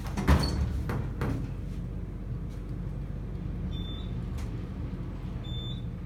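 Modernized Payne overhead-drive traction elevator: a sharp clunk about a third of a second in and two lighter knocks just after, then the car running with a steady low hum as it travels down. Two short high beeps sound in the second half.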